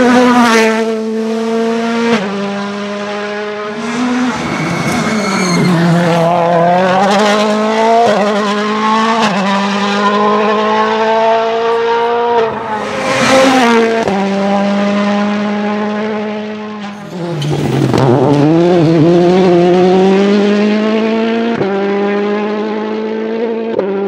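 World Rally Cars' turbocharged four-cylinder engines at full throttle past the roadside, one car after another. The engine note climbs through the gears, then drops sharply as a car brakes for a corner, with abrupt jumps between passes.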